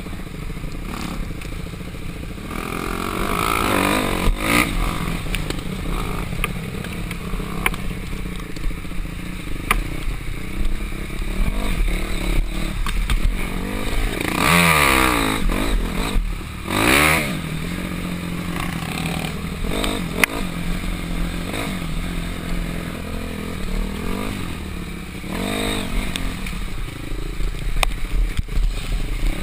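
Dirt bike engine heard close up from the rider's own bike, revving up and down as it rides a rough, rutted trail, with sharp rises and drops in pitch about halfway through.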